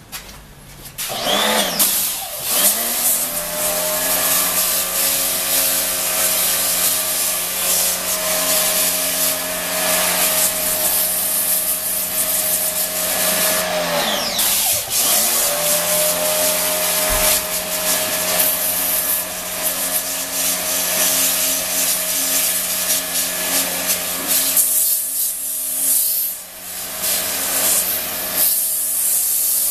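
High-pressure washer running, its pump motor humming steadily under the hiss of the water jet from the lance striking the rubber sponge of an air-conditioner panel. It starts about a second in; around halfway the motor's pitch drops and comes back up once, and the spray hiss eases briefly near the end.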